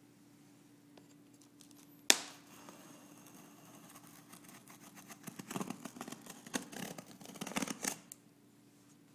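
A knife blade slicing along the packing tape on a cardboard box's seam: a sharp knock about two seconds in, then several seconds of rapid crackling as the tape is cut, loudest near the end before it stops.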